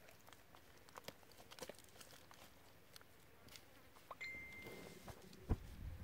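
Faint crackling and crinkling of hands packing wet clay around a foil-wrapped chicken, with scattered small clicks. A brief thin whistle sounds about four seconds in, and a short dull thud comes near the end.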